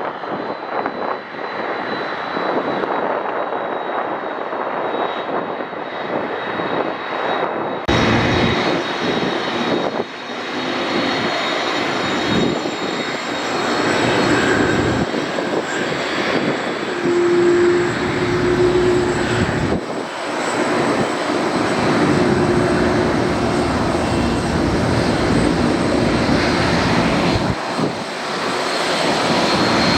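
Boeing 747-400 jet engines running, a continuous rushing rumble with a thin high whine. About eight seconds in, the sound suddenly becomes fuller and louder.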